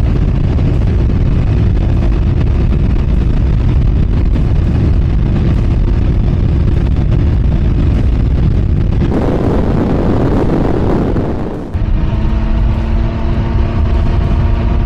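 Motorcycle engine running steadily at highway speed, mixed with heavy wind rumble on the rider's microphone. About nine seconds in, a rushing noise takes over for a couple of seconds. Then the engine comes back as a steady drone with a clear pitch.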